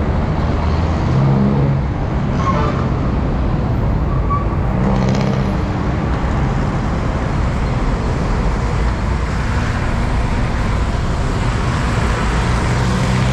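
Busy city road traffic heard from close alongside: car and motorcycle engines running over a steady rush of tyre and road noise. A low engine hum swells about a second in and again around five seconds, as vehicles pass close by.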